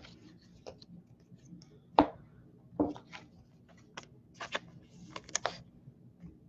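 Baseball cards being shuffled and handled in the hands: scattered light clicks and rustles, a sharp knock about two seconds in and another shortly after, then a run of crisp clicks and rustles near the end.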